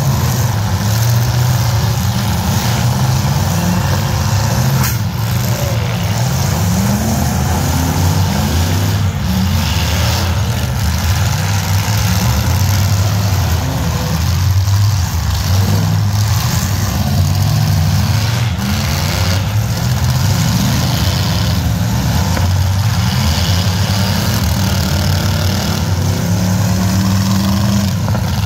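Several demolition derby trucks' engines running loudly together, revving up and down as they drive around the arena, with a few sharp knocks now and then.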